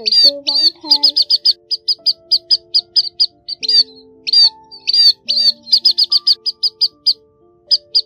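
Munia (chim ri) calls played as a bird-trapping lure: sharp high chips, some spaced out and some in quick runs of about six a second, over sustained low music notes.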